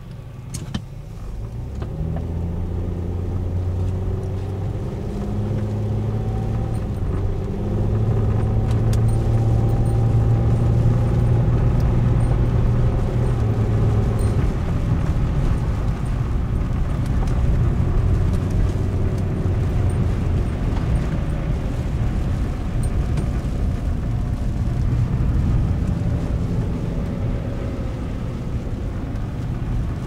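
Car engine and road noise heard from inside the cabin: the engine note rises as the car gathers speed over roughly the first ten seconds, then holds steady while cruising. A short click about a second in.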